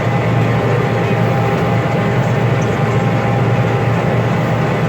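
John Deere 9600 combine running steadily under load while harvesting barley: an unbroken low engine-and-threshing drone.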